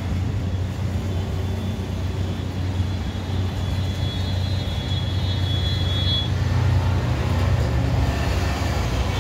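Street traffic: a steady low rumble of engines, swelling a little about three-quarters of the way through as a motorcycle passes. A thin, high tone sounds for about three seconds in the middle.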